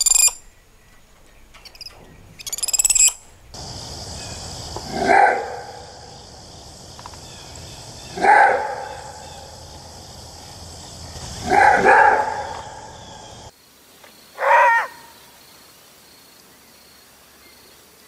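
A spider monkey gives a short, high, shrill call about 2.5 seconds in. Then a maned wolf gives its roar-bark four times, loud single calls about three seconds apart; the first three sound over a steady high hiss.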